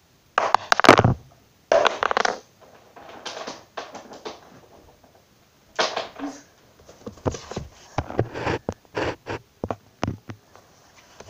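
Wooden Jenga blocks tossed onto a laminate wood floor, landing and sliding with clattering knocks and short scrapes. A few come near the start, then a quick run of knocks in the second half.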